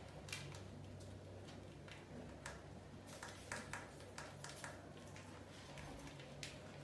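Faint, irregular clicks and light taps of rats scurrying about on a tiled floor around a plastic bucket, over a steady low hum.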